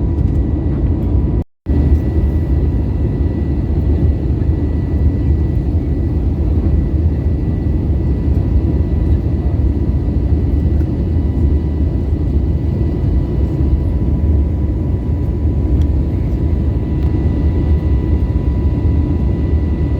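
Steady jet airliner cabin noise: a deep rumble of engines and airflow with a faint steady high whine. It cuts out for a split second about a second and a half in, then carries on unchanged.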